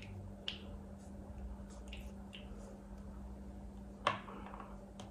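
A small perfume sample vial and its paper card being handled: a few soft clicks in the first two and a half seconds, then a sharper click about four seconds in, followed by a short hiss that fades within half a second.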